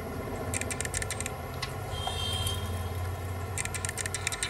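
Jumper wires being handled and pushed into a solderless breadboard: two clusters of light clicks, about half a second in and near the end, over a steady low hum.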